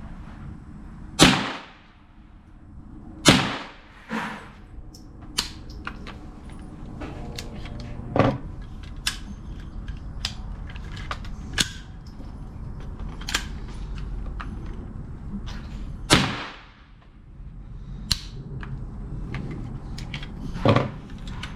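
Single .22LR shots from an AR-15 pistol fitted with a CMMG .22LR conversion kit: three loud shots, about a second, three seconds and sixteen seconds in, each ringing out briefly. Between them come weaker knocks and small metallic clicks as the action is handled, while the kit keeps jamming.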